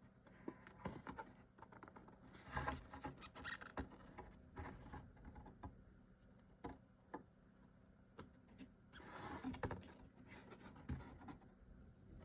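Faint handling noises of chipboard pieces being fitted and pressed together: scratching and rubbing with scattered light taps, in two denser stretches about two and a half seconds in and about nine seconds in.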